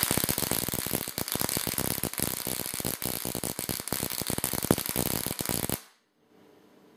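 Ruhmkorff induction coil firing high-voltage sparks between a central bolt and a pie-tin ring (a home-made lightning wheel): a loud, dense, rapid crackle that cuts off suddenly about six seconds in.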